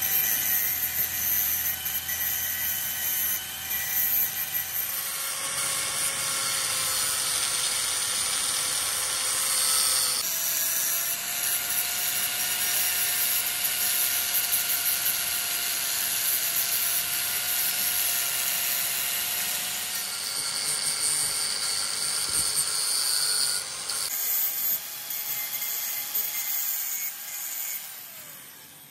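Electric angle grinder running with its abrasive disc grinding the teeth of a rusty steel gear: a steady motor whine over a harsh grinding hiss. The pitch and tone shift abruptly a few times, and the grinder winds down near the end.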